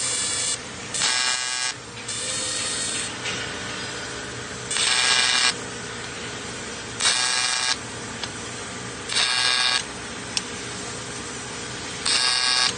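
Electric welding in short repeated bursts: about seven buzzing, hissing arcs of under a second each, a second or two apart, over a steady machine hum.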